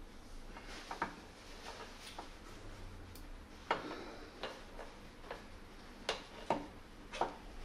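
Irregular sharp clicks, about eight of them, as a greased tapered roller bearing is set by hand into a motorcycle's steering head.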